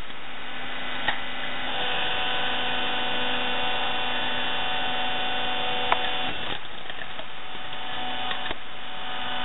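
Vertical hydraulic log splitter running with a steady motor-and-pump hum. About two seconds in the sound gets louder and brighter as the ram drives the wedge down through a log. A sharp crack near six seconds marks the wood splitting, and then it drops back to the plain hum.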